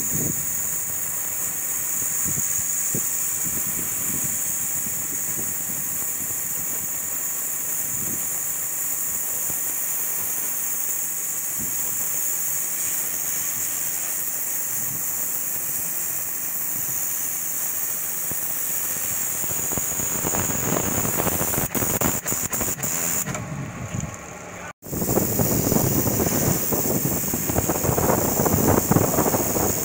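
Pressure washer blasting marine growth off a sailing yacht's fouled hull: a steady high hiss of the water jet over the running machine. It dips and breaks off briefly about 24 seconds in, then comes back louder and rougher as the jet strikes the hull.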